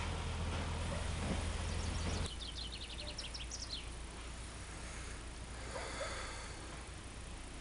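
Narrow-gauge diesel locomotive engine running with a steady low hum, which cuts off suddenly about two seconds in. A bird then sings a short, rapid run of chirps, with fainter calls a few seconds later.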